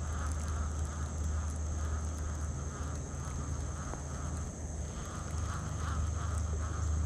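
Baitcasting reel being cranked steadily on a lure retrieve, over a constant low rumble and a steady high-pitched whine.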